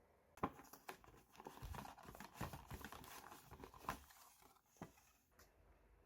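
Packaging being crinkled and torn open by hand, with a run of crackles and sharp clicks starting about half a second in and easing off near the end.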